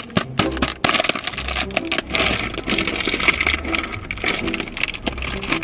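A plastic snack wrapper being handled and crinkled, a rapid, irregular run of sharp crackles.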